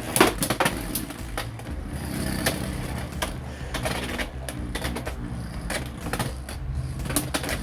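Two Beyblade X tops, Phoenix Feather and Hells Chain, spinning and clashing in a stadium: repeated sharp clacks of collisions at irregular intervals over a steady spinning whir. Hells Chain is hitting hard.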